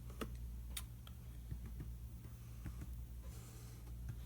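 Scattered light clicks and taps of metal sockets and tools being handled and pulled from a mechanics tool set's tray, a few separate clicks over a steady low hum.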